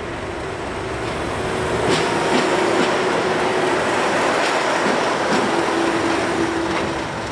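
Diesel locomotive passing close by with its engine running, hauling a train of coaches. The sound grows louder up to about two seconds in and then stays level, with the wheels clacking over rail joints several times as the coaches roll past.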